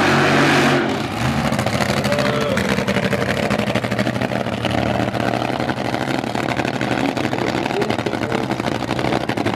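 Top Fuel dragster's nitromethane-fuelled engine running at a steady speed with a rapid, loud crackle. A loud rushing noise cuts off about a second in.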